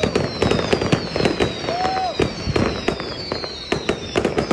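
Fireworks going off: a fast, irregular string of sharp bangs and crackles, several a second, with thin high tones sliding slowly down behind them.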